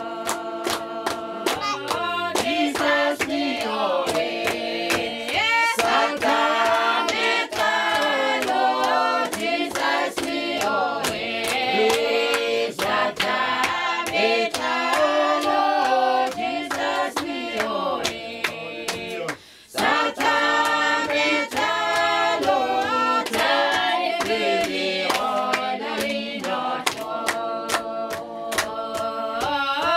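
A group of voices singing together in parts, with regular sharp beats keeping time. The singing breaks off briefly about two-thirds of the way through, then resumes.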